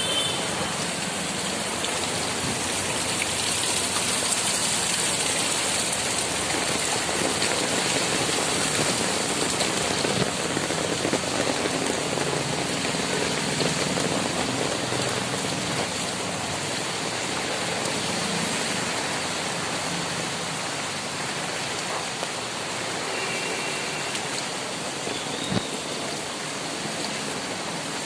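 Heavy rain pouring down steadily, an even continuous hiss, with one brief sharp tap near the end.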